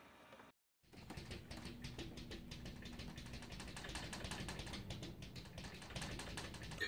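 Rapid, irregular light tapping and clicking as a cat paws at a mirror, its claws striking the glass, over a low steady hum. It starts after a brief cut to silence.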